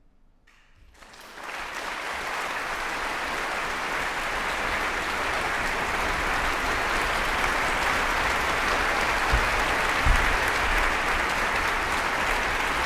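Concert hall audience breaking into applause about a second in after a near-silent pause, the clapping swelling quickly and then holding steady. Two low thumps sound late on.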